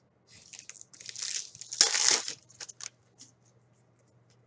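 Foil wrapper of a hockey card pack crinkling as it is torn open and handled, loudest around two seconds in, followed by a few light clicks.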